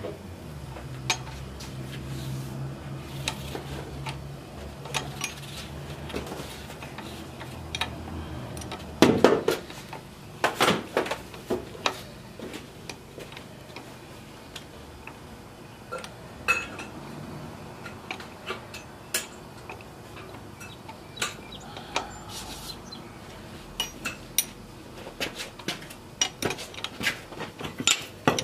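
Metal clinking and tapping as a 2005 Chevy Silverado drive shaft's U-joint is worked by hand at the rear differential yoke: scattered small knocks, with a cluster of louder ones about a third of the way in.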